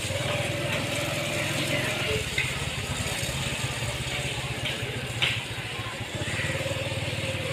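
A steady low engine hum with faint voices in the background.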